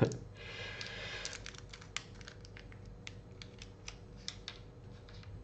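Irregular light clicks and taps of small model-kit parts being handled, plastic pieces and small metal springs, a few clicks a second, with a brief scraping rustle about a second in.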